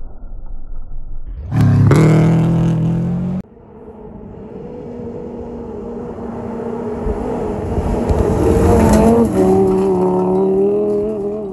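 Rally cars at speed on a gravel stage. First a Subaru Impreza rally car's flat-four passes close with a loud engine note that cuts off abruptly a few seconds in. Then a second rally car approaches, growing steadily louder, and its engine note drops as it goes by.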